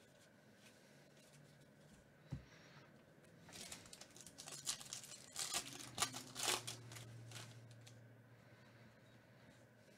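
The foil wrapper of a 2019 Topps Holiday baseball card pack being torn open and crinkled by hand: a few seconds of sharp, irregular crackling. A single soft knock comes about two seconds earlier.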